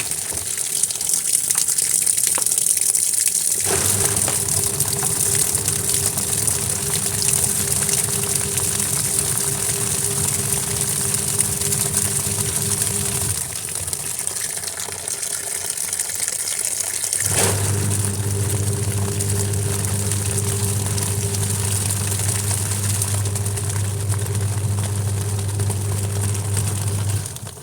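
Washing machine running with water: a continuous rush of water, and an electric motor or pump hum that starts about four seconds in, stops for a few seconds, then starts again.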